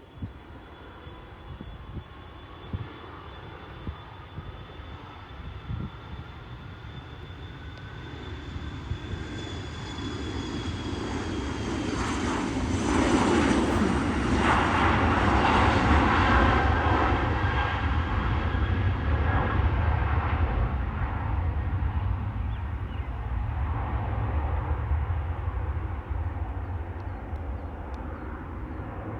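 Jet aircraft engines passing: a whine with a low rumble that builds slowly to a peak about halfway through and then fades away, its pitch sliding as it goes.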